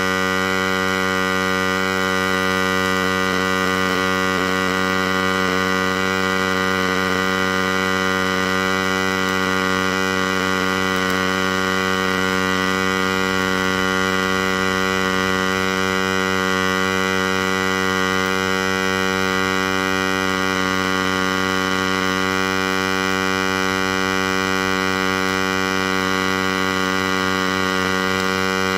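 MIG welder arc running steadily under the torch of a DIY CNC welding rig: a loud, unbroken electrical buzz made of many held tones.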